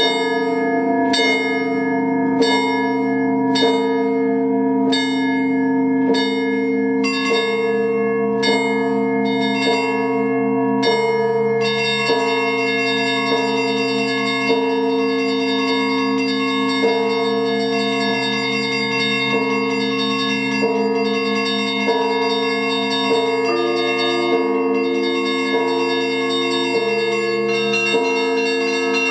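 Russian Orthodox church bells rung by hand in an improvised peal. Bells are struck about once a second over sustained ringing, and about twelve seconds in the small high bells join in a rapid, continuous chiming.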